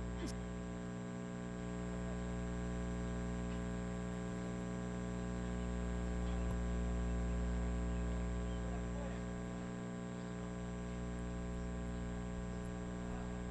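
Steady electrical mains hum on the public-address microphone feed, a buzzing stack of tones with no voice coming through: a sign of a faulty microphone line.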